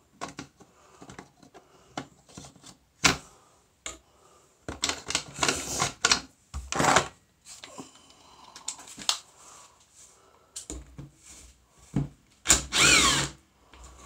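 Clicks and rattles of wire leads and terminal connectors being handled on a workbench, with short bursts of a small power screwdriver and a rising whine near the end as it spins up.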